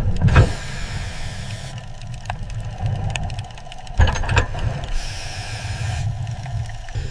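Low mechanical rumble with two heavy knocks, one just after the start and one about four seconds in.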